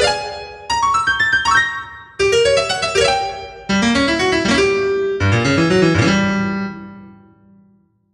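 Solo keyboard music playing rising broken chords of bright, struck notes. It ends on a low chord that rings and dies away near the end.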